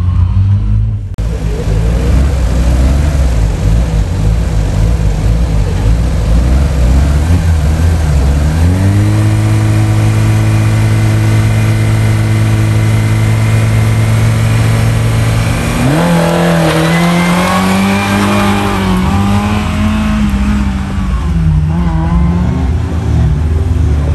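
Rally car engine at a stage start: the revs rise and are held steady for several seconds, then the car launches and the engine pitch jumps and rises and falls as it pulls away.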